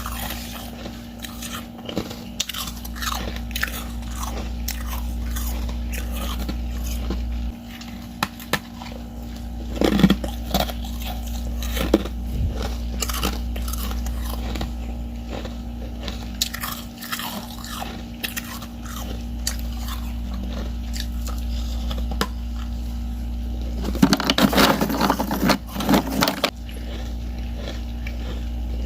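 Frost-covered ice chips being bitten and chewed close to the microphone: sharp crunches throughout, a loud bite about ten seconds in, and a dense run of crunching near the end. A steady low hum runs underneath.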